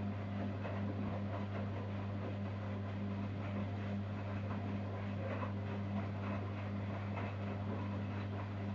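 Zanussi Jetsystem Turbodry ZWD 1000 washer-dryer running: a steady low hum with irregular rustling and clicking over it.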